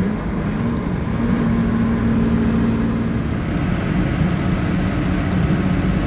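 Old Dodge pickup driving, heard from inside the cab: a steady engine drone with road noise, its pitch shifting slightly for the first few seconds.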